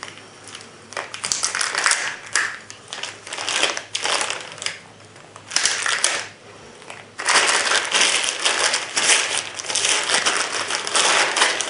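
Thin clear plastic bag crinkling and rustling as it is worked off a rifle scope by hand. It comes in bursts with short pauses, then runs on without a break over the last few seconds.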